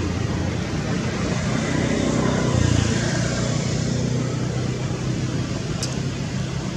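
Steady low engine hum with road-traffic noise, and a single sharp click near the end.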